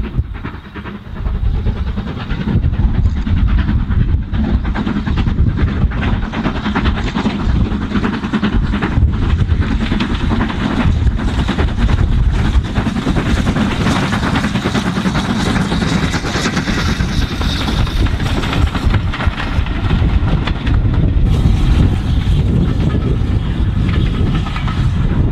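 Steam locomotive under steam passing close with its train of coaches, the exhaust chuffing and hissing over the wheels running on the rails. The sound grows louder about two seconds in as it nears, and near the end a more distant steam train hauling coaches takes over.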